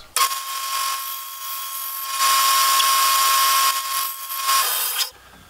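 Bandsaw running with a steady high whine, louder for about a second and a half in the middle as the blade cuts through a half-inch aluminum tube spacer held on a crosscut sled. The sound cuts off suddenly near the end.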